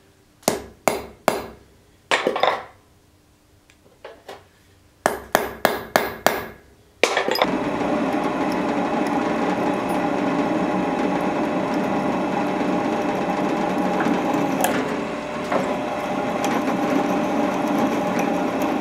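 A hammer tapping a centre punch on a small steel block on an anvil: sharp metallic knocks in short groups, about a dozen in all. About seven seconds in, a drill press starts up and runs steadily, drilling into the block clamped in a machine vise.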